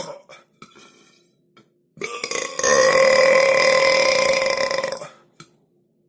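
A person belching: one long, loud burp of about three seconds at an almost steady pitch, starting about two seconds in. The tail of an earlier burp ends right at the start.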